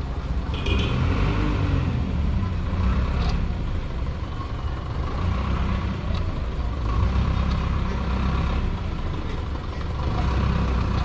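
Steady low rumble like a motor vehicle's engine running nearby, with a couple of faint clicks from a hand wrench on the scooter's drive-case bolt.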